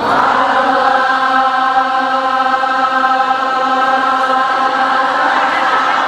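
A man chanting a devotional melody into a microphone, holding one long steady note for about four seconds, amplified over a PA.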